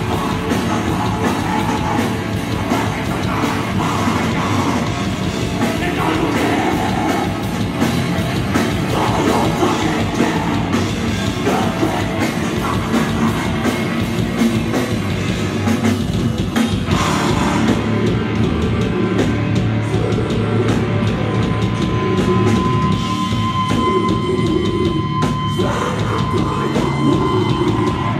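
Heavy metal band playing live: distorted guitars, bass and fast drums with vocals through the PA. A long held high note rings over the last few seconds.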